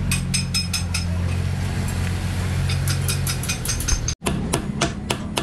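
Metal tools clicking and clinking against a truck's wheel over a steady low engine hum. After an abrupt break about four seconds in, quick, even metallic clicks, about four or five a second, of a hand tool working at the wheel hub.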